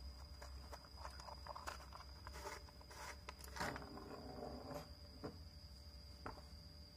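Handling noise from a foil-lined cardboard lamp reflector and a lamp socket with its cable: crinkling aluminium foil with scattered small taps and clicks, busiest in the middle and thinning out near the end.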